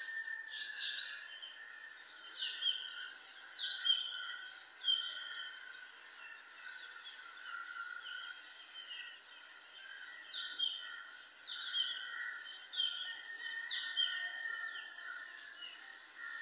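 Birds chirping: short, falling chirps repeating about once a second over a steady high background hum.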